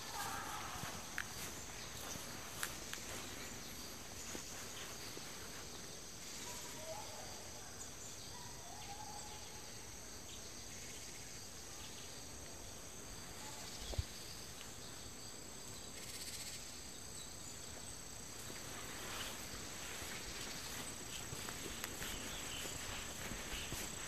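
Forest ambience: a steady high-pitched insect chorus, with a few faint chirps about a quarter of the way in and scattered soft clicks, one sharper knock just past the middle.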